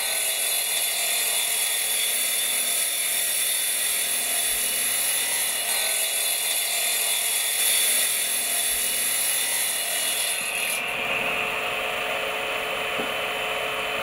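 Electric masonry saw with a sliding tray, its blade running steadily as it cuts through a firebrick. The sound changes about eleven seconds in, with less hiss at the top.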